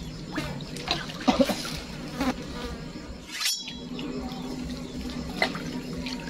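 A steady low buzz like a fly or bee close to the microphone, with a few light knocks or splashes in the first two seconds. The buzz drops out briefly about three and a half seconds in, then carries on.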